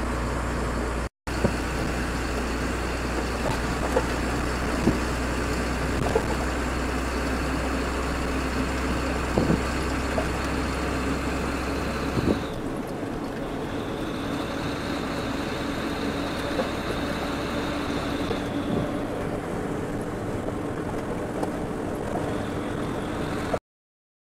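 Goods truck driving on a motorway, heard from inside the cab: steady engine and road noise with a few sharp knocks from the cab. About halfway through, the deep low rumble drops away at a cut in the picture, and the sound stops just before the end.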